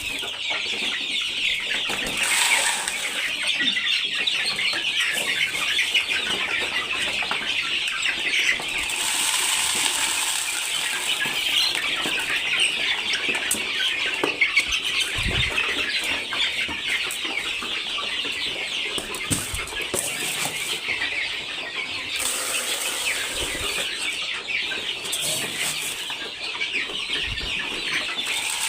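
A flock of chicks and chickens cheeping and clucking continuously while feeding, a dense high chatter of many small calls, with occasional wing flapping.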